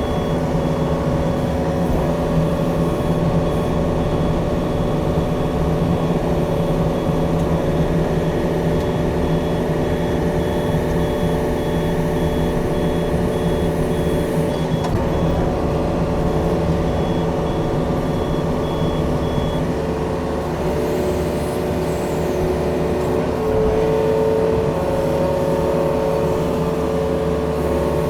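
Yanmar diesel engine running steadily while the machine works, with a high-pitched warning beeper pulsing about twice a second that stops about two-thirds of the way through.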